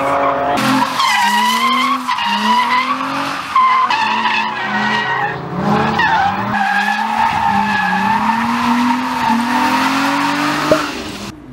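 Nissan 350Z's V6 engine under drift throttle, revs rising and dropping back in repeated surges about once a second, over continuous tire squeal from the sliding rear tires.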